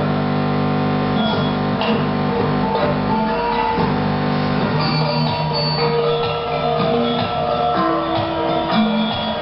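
Music playing steadily, with held chords that change every second or so.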